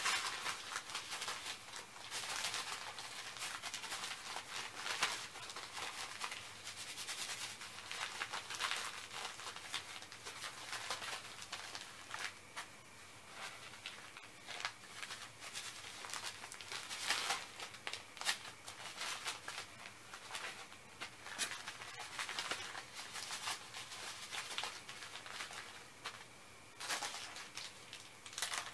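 Rustling and crinkling of heat-pack wrappers and packaging being handled, with many scattered light clicks and taps. The heat packs are air-activated warmers being readied for shipping.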